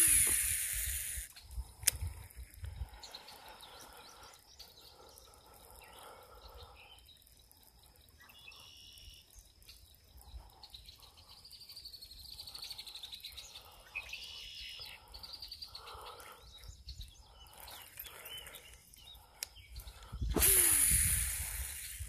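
Two casts with a baitcasting reel: each is a rush of line off the spool with a whirring whine that falls in pitch as the spool slows. One comes at the start and the other about twenty seconds in. Between them there are faint bird chirps.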